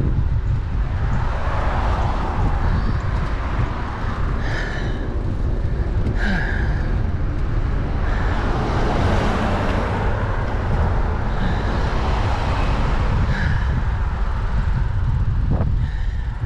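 Wind buffeting a bicycle-mounted GoPro's microphone over tyre and road noise, a steady low rumble with a hiss that swells twice. A few short higher-pitched sounds come through about four, six and thirteen seconds in.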